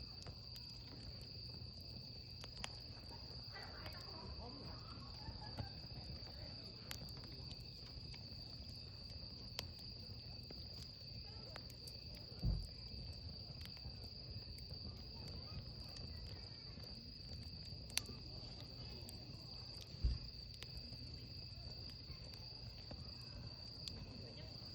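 Wood fire crackling with scattered sharp pops over a steady high chirring of crickets, with two louder low thumps about halfway through and near the end.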